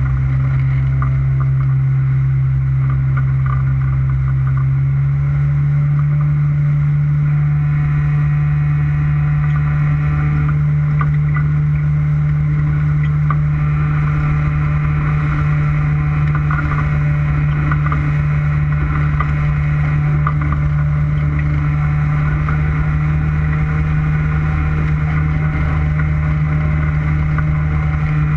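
Motorboat engine running steadily under way, picking up speed slightly about five seconds in, with water rushing past the hull.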